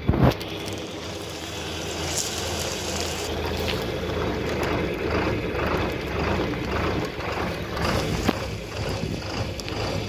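John Deere 4240S tractor's six-cylinder diesel engine running steadily under load while it pulls a mouldboard plough through the soil, with a sharp metal knock right at the start.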